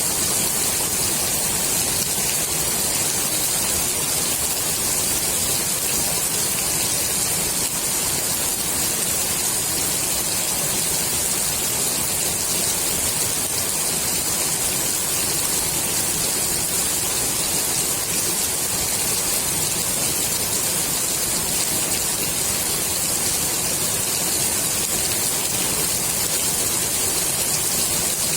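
Steady rain falling on a swimming pool, an even hiss with no let-up.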